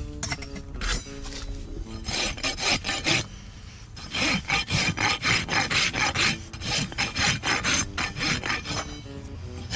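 Farrier's steel hoof rasp filing a horse's hoof in quick strokes, about three a second, with a short pause about three seconds in, levelling the hoof.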